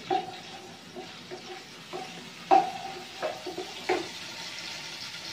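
Chopped garlic sizzling in hot oil in a wok while a wooden spatula stirs it, knocking against the pan a few times with a short ring.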